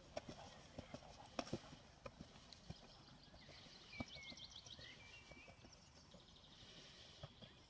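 Faint hoofbeats of a horse moving over a soft grass-and-sand arena: scattered dull thuds and clicks, with a brief chirp about halfway through.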